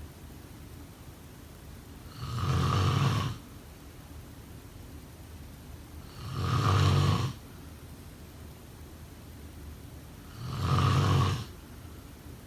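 A sleeping person snoring: three snores about four seconds apart, each lasting about a second.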